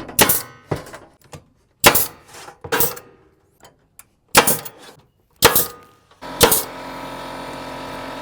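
Staples being driven to tack wire mesh onto a wooden chicken ramp: a series of sharp snapping strikes about a second apart. From about six seconds in, a steady hum runs under them.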